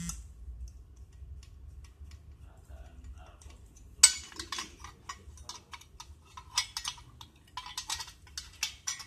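Metal arms of a Bervin BMB-A1932 TV wall bracket clicking and clanking as they are handled and fitted together. One sharp click about four seconds in is followed by a run of lighter metallic clicks and rattles.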